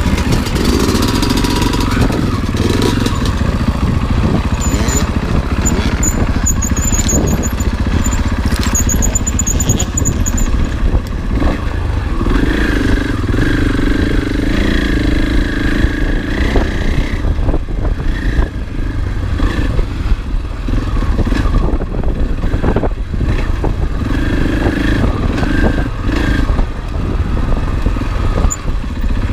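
Dirt bike engine, a Husqvarna FE 501 single-cylinder four-stroke, running under way on the trail, its revs rising and falling.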